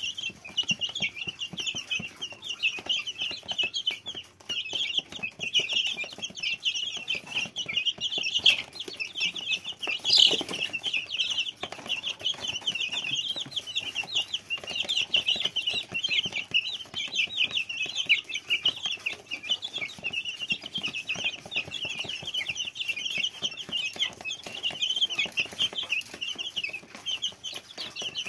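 A brood of young chicks peeping continuously, a dense chorus of short high chirps, as they crowd together pecking at a shared pile of mash; one louder call stands out about ten seconds in.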